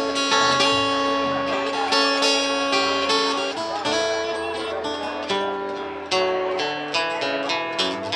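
Live acoustic guitar playing, a run of plucked and strummed notes.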